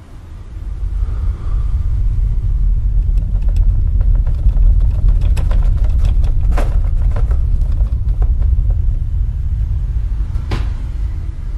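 A loud, deep rumble that swells in within the first second and then holds steady, with scattered clicks and crackles over it and one sharp click near the end.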